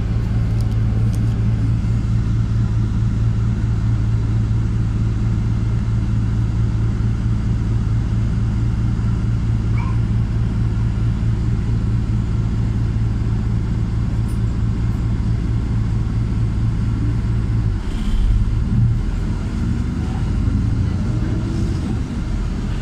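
LiAZ 5292.67 city bus's YaMZ-53624 engine, running on compressed natural gas, idles as a steady low hum while the bus stands still. About eighteen seconds in the hum swells and changes as the bus begins to move off.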